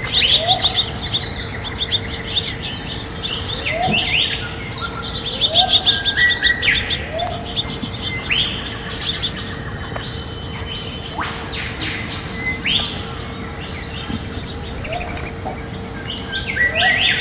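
Several birds chirping and calling: rapid high trills and chatter with short sweeping whistles, and a low rising note repeated every second or two that pauses midway, over a faint steady hum.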